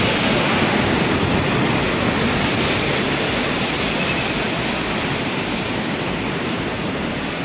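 Steady rushing of water released through a dam's opened outlet valves, an even hiss.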